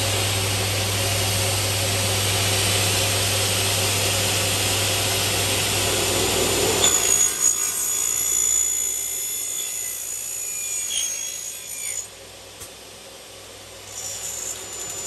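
Single-head aluminium cutting saw with a 355 mm blade on an induction motor, running at speed, then the blade cutting through an aluminium window profile with a high-pitched whine from about seven seconds in. The noise drops sharply about twelve seconds in.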